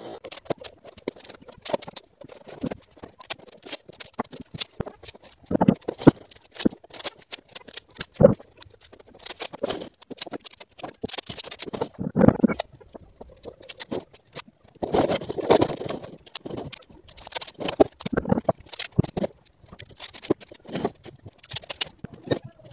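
A marble rattling and clicking as it rolls through a long run of plastic tubing, with irregular clusters of louder knocks where it bumps along the tube.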